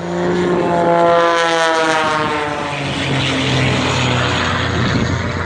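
Propeller airplane passing close by, its engine note sliding down in pitch as it goes past, loudest about a second in, then fading into a steady rushing noise.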